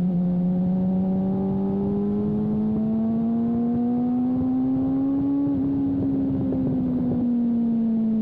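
Sport motorcycle engine heard from its own onboard camera at track speed: the revs climb steadily for about five seconds, then ease off and fall slowly. Wind noise rushes over the microphone.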